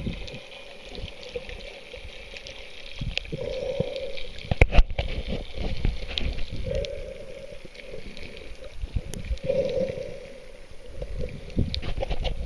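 Water sloshing and gurgling, muffled as heard by an underwater camera, with frequent dull knocks from the camera being handled against the swimmer. There is one sharp knock a little under five seconds in.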